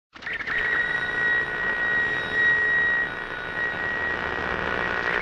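Steady rushing noise with a high, whining tone held through it, starting suddenly.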